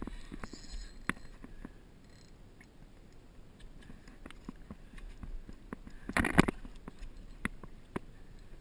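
Small knocks and clicks on a fishing boat's deck and hull, with one loud brief splash about six seconds in as a hooked permit is brought to the boat's side.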